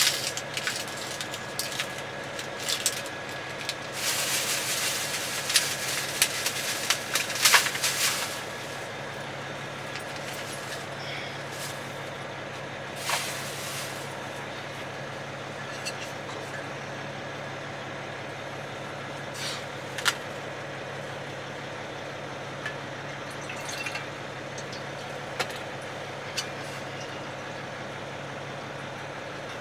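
Steady low hum of a semi truck idling, heard from inside the sleeper cab. Rustling and sharp clicks of things being handled fill roughly the first eight seconds, then only a few scattered knocks.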